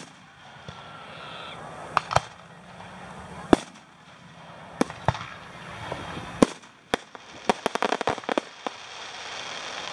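Aerial fireworks shells bursting overhead: single sharp bangs every second or so, then a quick run of crackling pops about three quarters of the way through.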